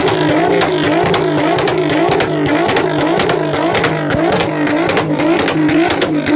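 Nissan GT-R engine and exhaust being revved over and over, its pitch rising and falling about twice a second, with sharp exhaust pops and bangs crackling throughout.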